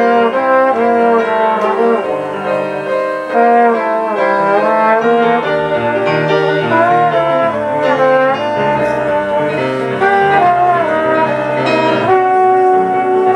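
Trombone playing a melody over piano accompaniment: live jazz by a trombone and piano duo.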